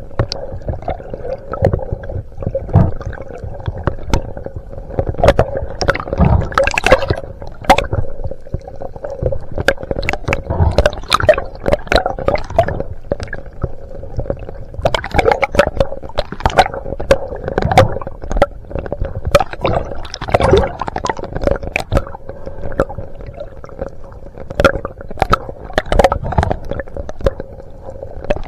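Muffled underwater water noise: sloshing and gurgling with irregular knocks and clicks, over a faint steady hum.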